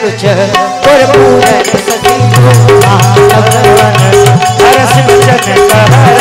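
Devotional folk music interlude: a dholak drum beating a steady rhythm under an electronic keyboard holding and repeating a melody. A sung line trails off in the first second.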